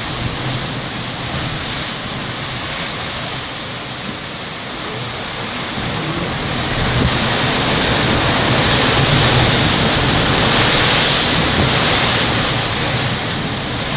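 Atlantic surf churning and foaming against the lava rock of a sea-cave opening: a continuous rushing hiss that swells louder about halfway through and eases a little near the end.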